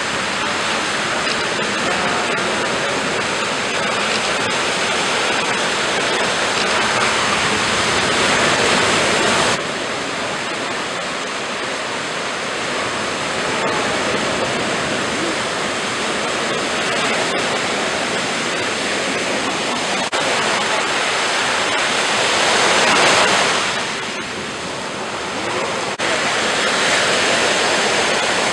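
Ocean surf: waves breaking and washing ashore as a continuous rushing noise, swelling to a peak a little before the end, with abrupt changes in level about a third of the way in and near the end where the recording is cut.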